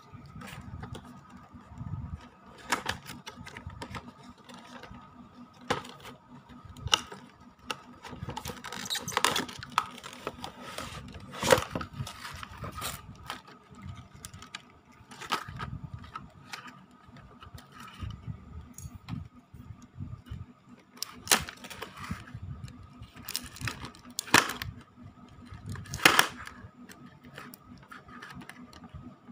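Unboxing handling noise from clear plastic packaging and a cardboard box. Plastic rustles and crinkles with irregular sharp clicks and crackles, a few of them louder.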